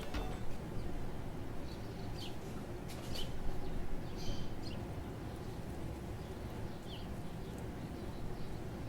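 Steady low background rumble, with a few faint, short bird chirps scattered through it.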